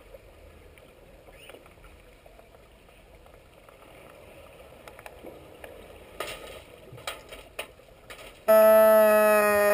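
Underwater hockey referee's underwater sounder heard through the submerged camera: a loud, steady buzzing horn tone with many overtones sets in about a second before the end, signalling a stop in play. Before it, faint underwater hiss with a few sharp clicks and knocks as players reach the goal.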